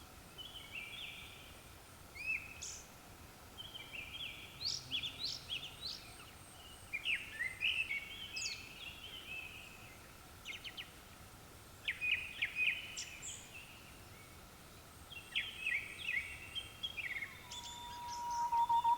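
Japanese thrush singing: short phrases of varied whistles and fluty trills, repeated every two to three seconds with pauses between. Near the end a steady, level tone lower in pitch swells up and becomes the loudest sound.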